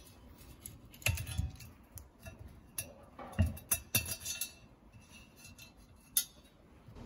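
Locking pliers and small metal parts clinking and knocking against a cast-iron stove piece: a cluster of irregular metal clicks and clinks in the first half, then a single sharp click about six seconds in.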